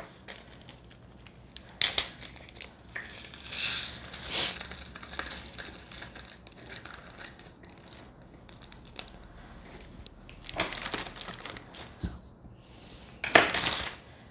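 Small plastic zip bag crinkling as it is handled and tipped, with tiny plastic diamond-painting drills rattling into a plastic jar. The sound comes in scattered short bursts, the loudest about a second before the end.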